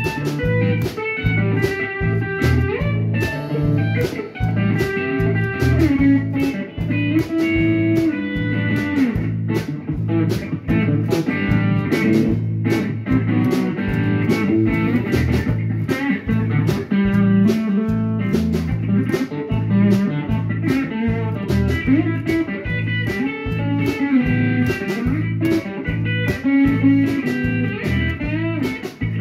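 A band playing an instrumental blues-style tune: electric bass and guitar over a drum kit keeping a steady beat.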